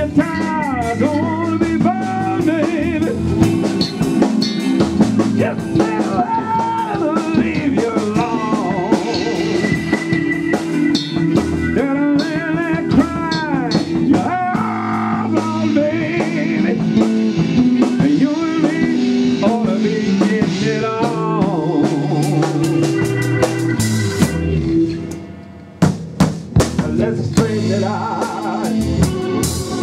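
Live band playing a slow blues groove on drum kit, bass guitar and electric guitar, with a lead line that bends and wavers in pitch over it. About 25 seconds in the band briefly drops away, then comes back in on a drum hit.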